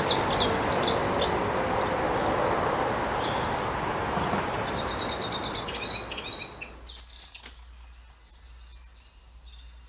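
Songbirds chirping over a steady high-pitched insect drone and outdoor background noise. About seven seconds in, the drone and background drop away sharply with a couple of sharp clicks, leaving only faint bird chirps.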